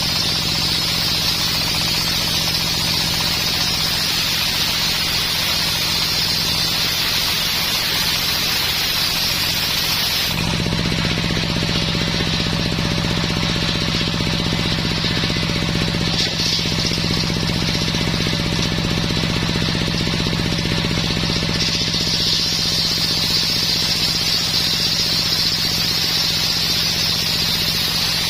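Engine-driven homemade circular sawmill running steadily while its blade saws dense coconut-palm wood, with a high, hissing cutting noise over the engine hum. The cutting noise stops abruptly about ten seconds in, leaving the engine and spinning blade running, and picks up again at about 22 seconds as the blade goes back into the wood.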